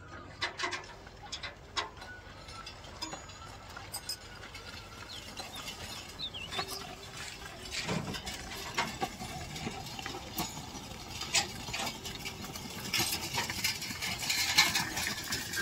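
Bullock cart drawn by a pair of bullocks on a paved road: hooves clicking on the road surface and the cart rattling, getting louder as it comes closer.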